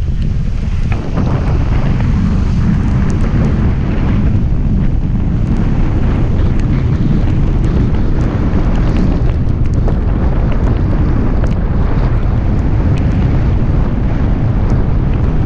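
Wind buffeting the camera microphone of a moving car, a loud steady low rumble, with faint scattered ticks of raindrops hitting the camera.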